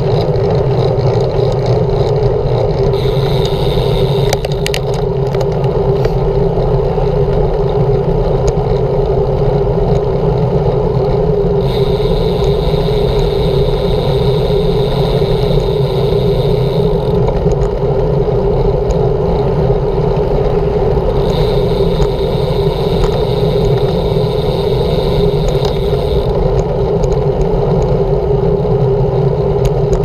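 Steady, loud rushing of wind and road noise on a bicycle-mounted camera riding along a busy road, with a hissier high sound added three times for a few seconds each, as from passing traffic.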